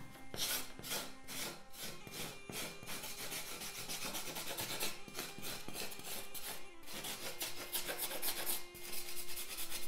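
A wooden knife scraping excess flour off the crust of a baked round loaf of country bread, in quick, repeated rasping strokes.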